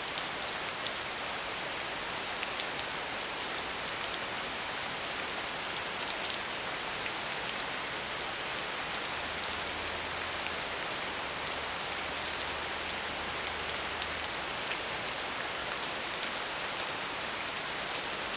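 Steady rain falling, an even hiss with many small individual drop ticks and no change in intensity.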